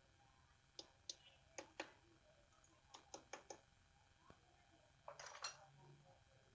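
Faint, scattered light clicks and taps of a thin head gasket and metal engine parts being handled as the gasket is laid onto a Bajaj Pulsar 150's cylinder, with a short cluster of clicks near the end.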